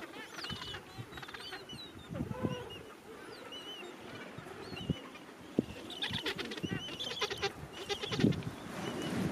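Gentoo penguins calling in a colony: fainter short chirps at first, then loud, pulsing calls about six seconds in and again just after eight seconds.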